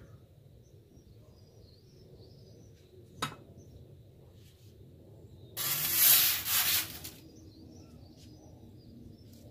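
A sharp click as the kamado grill's lid is opened, then a loud scraping rush lasting about a second and a half as a metal pizza peel is pushed under the sourdough loaf on the baking stone.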